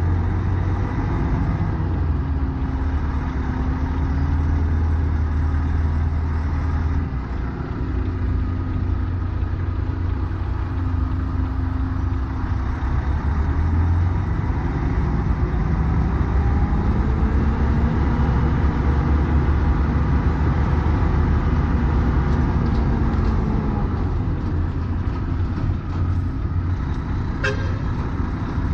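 Heavy truck's diesel engine running as the truck drives off, heard from the cab, its note rising and falling as it pulls away. A brief sharp sound stands out near the end.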